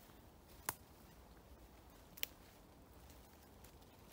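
Light rain in a forest: scattered drops ticking on leaves over a faint steady hush, with two sharper drop-ticks about a second and a half apart.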